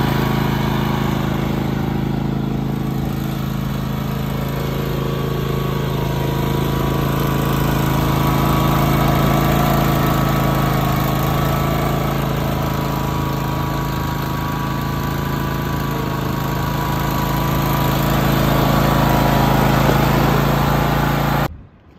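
Cub Cadet LTX1046 riding lawn mower engine running steadily as the mower is driven, its level swelling and easing a little. The engine sound stops suddenly near the end.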